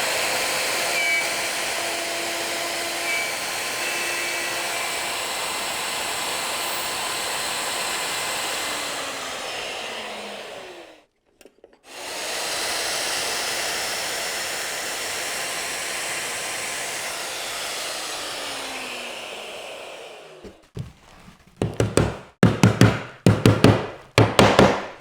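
Router running while it cuts stub tenons in a Leigh FMT Pro mortise-and-tenon jig, in two long steady runs. Each run ends with the motor winding down in pitch. A series of sharp knocks follows near the end.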